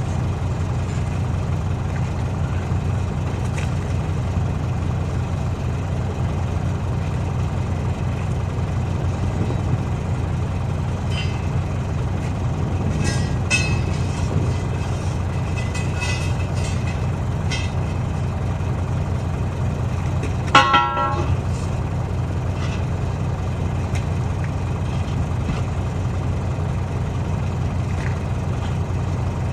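Heavy engine idling steadily, with a few light metallic clinks and one short, loud tone about two-thirds of the way through.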